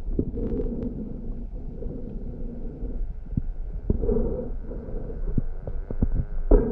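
Muffled underwater rumble as heard through a camera's waterproof housing, with scattered knocks and clicks, more of them in the second half and the loudest near the end.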